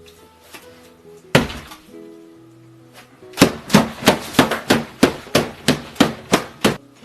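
Background music with a single loud knock, then a steady run of about a dozen sharp whacks, about three a second.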